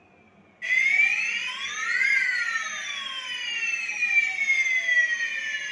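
Electronic fire alarm sounder of an addressable fire alarm system switching on suddenly about half a second in and wailing in a slow rising-and-falling sweep: the system has gone into alarm during a test.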